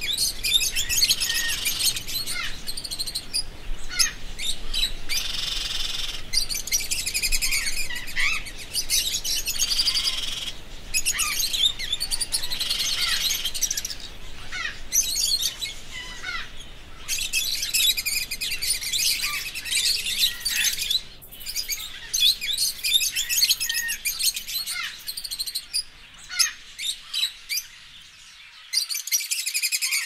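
Small parrots chirping and twittering in a dense, continuous chatter of rapid high calls, thinning to a few separate chirps near the end.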